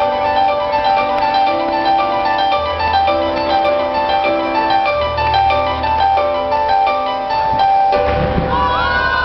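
Music with a keyboard melody of held notes over a bass line. About eight seconds in, a crowd starts cheering and shouting over it.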